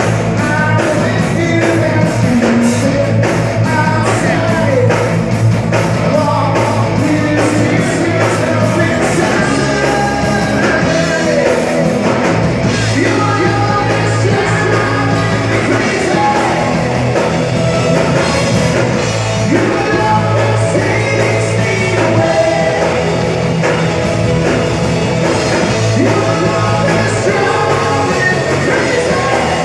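Live rock band playing a song with a lead singer, electric guitar, bass and drums.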